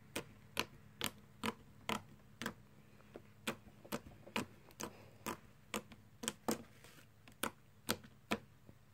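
Slime being poked with a finger: sharp, short clicks and pops about twice a second, with a short pause about three seconds in.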